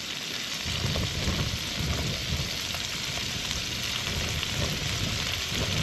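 Pasta, chicken and chorizo in sauce sizzling in a frying pan on a camping gas stove: a steady hiss with a rumble underneath.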